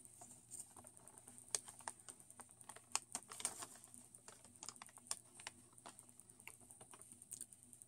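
Faint, irregular crinkles and ticks of paper shopping receipts being handled and held up in the hands.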